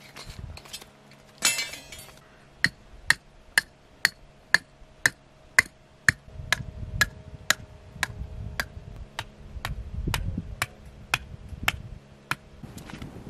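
Metal stake being knocked into a pebbly riverbank: sharp clinking strikes at an even pace of about two a second, stopping near the end, with a short rattle about one and a half seconds in.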